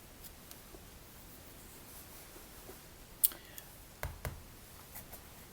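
A few light clicks and taps of tarot cards being handled, the sharpest about three seconds in and two more about a second later.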